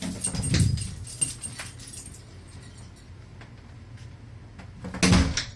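Bedroom door on a homemade parallel-mount hydraulic door closer: metal rattling and clicking of the hardware as it swings, then the closer pulls the door shut with a loud thump about five seconds in.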